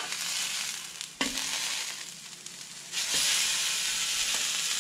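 Halibut fillets sizzling on a hot oiled griddle, with a sharp clack of a metal spatula on the griddle about a second in as a fillet is turned. The sizzle grows louder about three seconds in, as the fillet lands browned side up on the hot surface.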